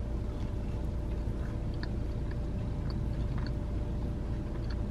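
A person chewing a mouthful of a patty melt sandwich, with small, soft wet mouth clicks scattered throughout, over a steady low hum inside a parked car.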